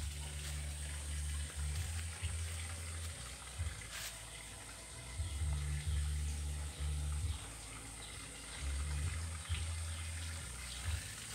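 Wind and handling noise on a hand-held phone's microphone: low rumbling that comes and goes in gusts of a second or so over a steady crackly hiss, with a single click about four seconds in.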